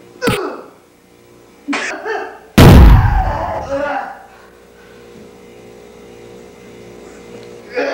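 Blows in a staged fistfight: a sharp smack just after the start and a short shout, then a very loud, heavy thud about two and a half seconds in that rings on for about a second. A faint steady hum follows.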